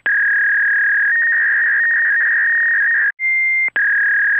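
Loud electronic beeping tones in a repeating cycle: a steady high tone that steps up to a slightly higher, wavering tone about a second in, breaks off about three seconds in, then a short higher beep and the first tone again.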